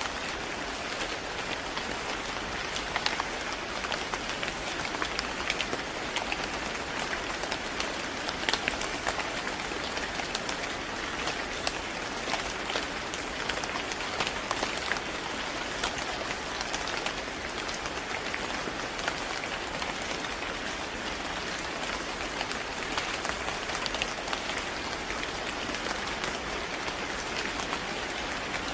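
Steady rain falling on a surface, a dense even hiss with many small sharp drop impacts scattered through it.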